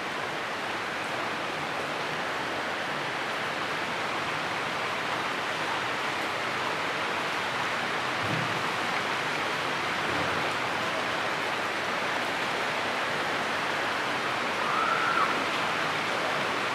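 Heavy rain falling steadily on tree foliage, a continuous even hiss. Near the end there is a brief chirp-like call.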